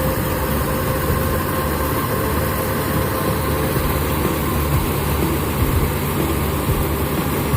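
Rice combine harvester's engine running steadily, with a thin steady whine above it over the first few seconds.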